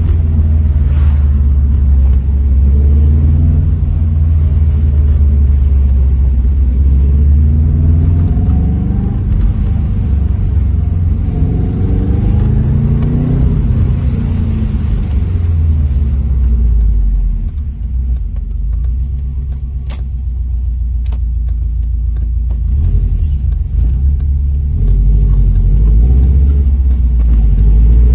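In-cabin sound of a Subaru Impreza GC8 under way: the flat-four engine and road rumble, its pitch rising and falling several times as the car speeds up and slows, dropping quieter for several seconds about two-thirds through before rising again near the end.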